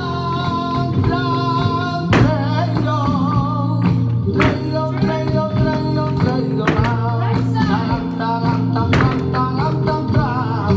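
Flamenco garrotín music with a singing voice over guitar. Sharp percussive strikes land throughout, the strongest about every two seconds.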